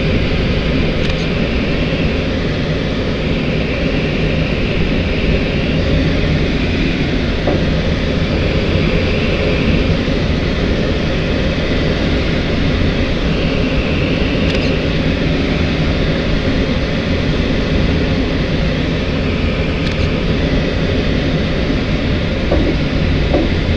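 Steady rumble of air rushing past an L-23 Blaník glider's cockpit in flight, with a faint high whistle that comes and goes every few seconds.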